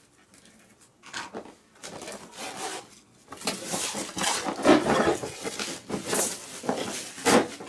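Clear plastic shrink wrap being torn and peeled off a cardboard toy box, crinkling and rustling in irregular bursts that start about a second in and grow louder in the second half.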